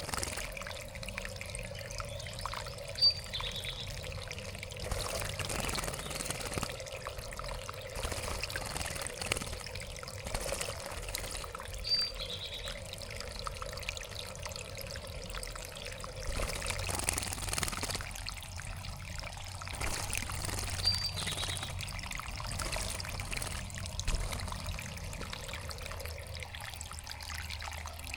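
Water trickling and splashing steadily in a backyard bird bath. A short high chirp comes three times, about nine seconds apart.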